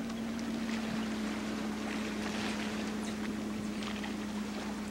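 Motorboat engine humming steadily as it tows a water skier across the lake, with some wind noise on the microphone.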